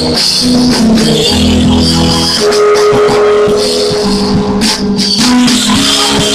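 Live gospel praise singing: a small group of voices holding long sustained notes through a PA system, with a hand-percussion rattle and light drum hits keeping time.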